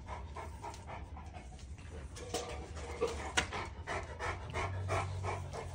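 Large dog panting steadily, a quick run of short breaths about three or four a second.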